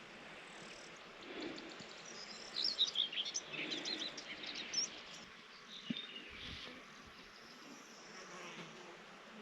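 Small birds chirping, a quick run of short high notes from about two to five seconds in, over a faint buzz of insects.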